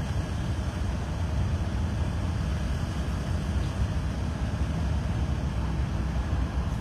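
Farm tractors and trucks moving past in a parade, a steady low engine rumble.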